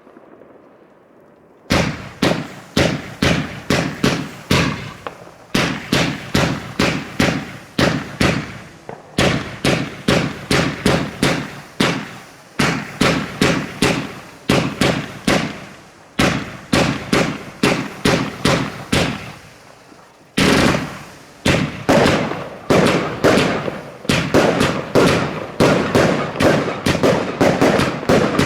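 Fireworks going off in quick strings of sharp bangs, about three or four a second, each with a short echoing tail. The strings run a few seconds each with brief pauses between, and the first starts about two seconds in after a quiet moment.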